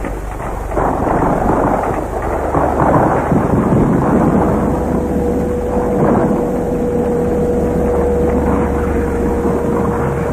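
Dense, rumbling gunfire and explosions on an old film soundtrack. A steady whine joins in about four seconds in.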